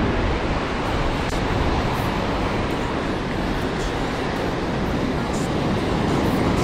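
Ocean surf breaking on the beach, with wind buffeting the microphone: a steady rushing noise.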